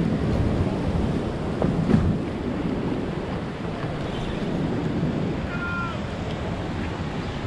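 Wind buffeting the microphone over the wash of choppy surf and waves. A short high squeal sounds once, about five and a half seconds in.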